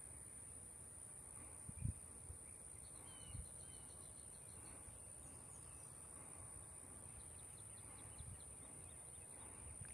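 Near silence: faint outdoor field ambience with a steady high-pitched whine, a couple of faint bird chirps about three seconds in, and a soft thump about two seconds in.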